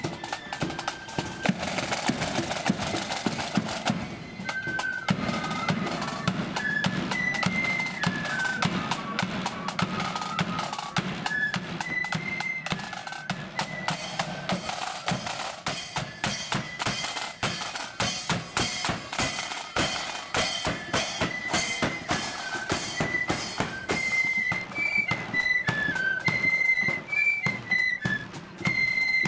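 Marching flute band: snare drums playing a roll and march rhythm with bass drum, then after about four seconds the flutes come in with a high melody over the drum beat.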